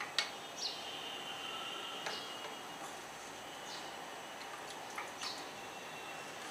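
A few light clinks and taps of a spoon against a metal pan and a glass bowl as syrup-soaked sweets are lifted out, the sharpest just after the start, over a faint hiss with a few short high chirps.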